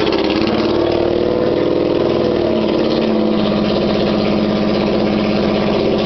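1988 Honda NT650 Hawk's V-twin engine idling on its first start after a complete rebuild, running steadily with a slight dip in engine speed about two seconds in.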